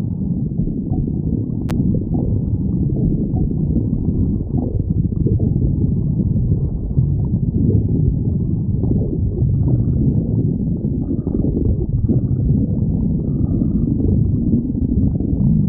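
Hungry stomach growling: a continuous low rumbling, with a single sharp click a little under two seconds in.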